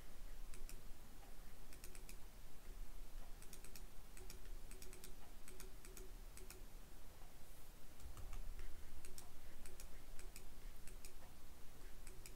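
Scattered clicks of a computer mouse and keyboard, several coming in quick pairs like double-clicks.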